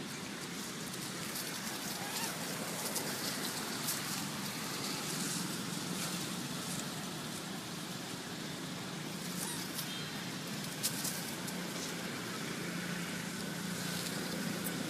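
Outdoor background noise: a steady low hum, with scattered light rustles and clicks of dry leaves and one sharp tick near the end.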